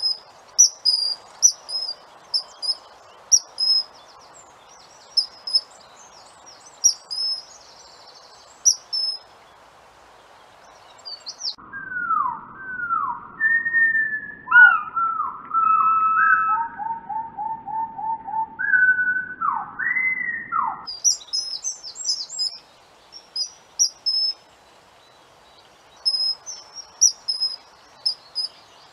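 Common kingfisher calling: short, shrill high whistles repeated every half second or so. In the middle stretch these give way to a run of lower notes that fall in pitch, over a low rumble, before the high whistles return.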